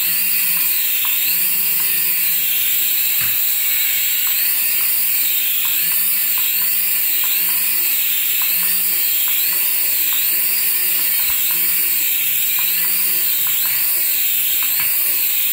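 High-pitched electronic whine from a battery toy, warbling up and down in pitch about every three-quarters of a second without a break.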